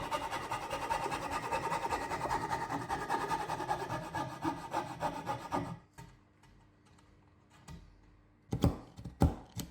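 Coping saw cutting through construction-grade pine in quick, even strokes, removing the waste between dovetails; the sawing stops about six seconds in. Two sharp knocks follow near the end.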